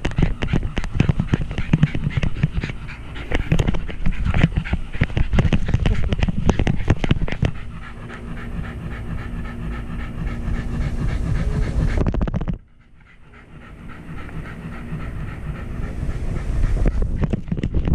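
Wire-haired fox terrier panting, heard close up through a camera strapped to its back, with frequent knocks and rubbing from the loose harness mount. About two-thirds of the way in the sound drops off suddenly, then builds back up.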